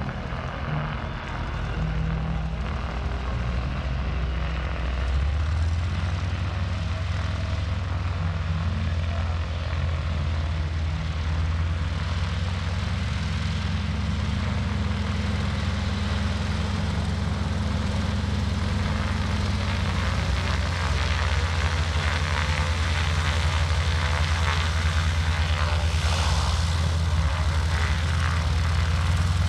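North American SNJ-6 Texan's Pratt & Whitney R-1340 radial engine running at low taxi power as the plane rolls along the taxiway: a steady, low-pitched propeller-engine note, growing slightly louder near the end.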